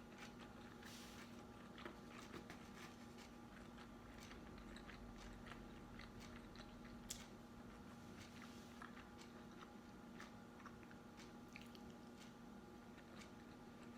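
Faint chewing and biting of food, with scattered small mouth clicks and light crunches over a steady low hum.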